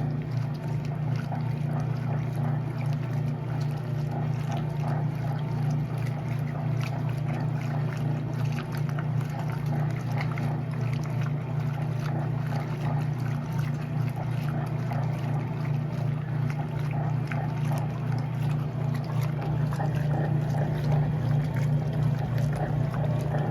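Electrolux LE06DBD top-load washing machine running with a steady low hum, water running and splashing in the drum.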